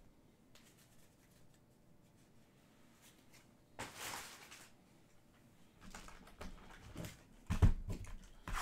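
Hands handling a cardboard trading card box on a table: faint clicks, a short rustle about four seconds in, then a run of clicks and knocks that gets louder near the end as the box is worked open.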